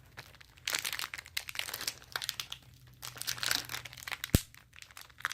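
Foil wrapper of a Pokémon trading card booster pack crinkling and crackling as it is handled and torn open, with a single sharp click a little past four seconds in.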